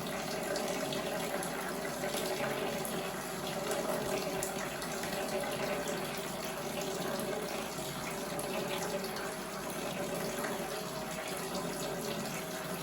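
A thin stream of water, siphoned through a small pipe from a 5-litre bottle overhead, falls steadily into a bowl and splashes like a running tap.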